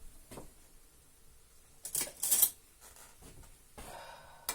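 Coffee in a pot on a gas stove boiling over after grounds are spooned in: short hissing spurts about two seconds in, among light clicks and knocks of the spoon and pot.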